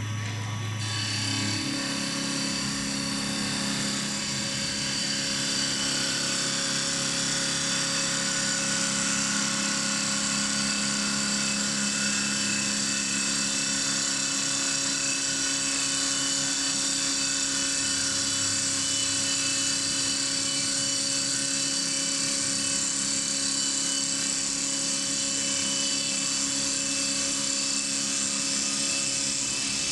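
Single-axis double-blade CNC wood lathe running: a steady motor hum with several held tones under a constant high hiss as its blades cut the spinning wooden blank. A low hum drops out about a second in, and the sound builds over the first few seconds as the cut gets going, then holds steady.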